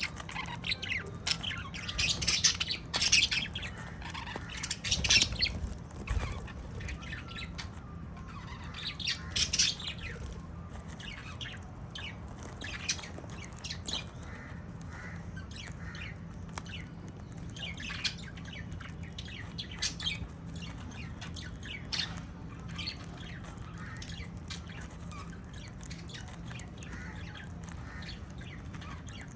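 Pet lovebirds and budgerigars chirping and squawking in many short high calls, busiest in the first ten seconds and sparser after that, over a steady low hum.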